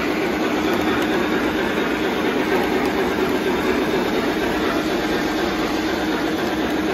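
Model train running along the layout track: a steady rumble of the locomotive's motor and wheels on the rails, with a faint clickety-clack.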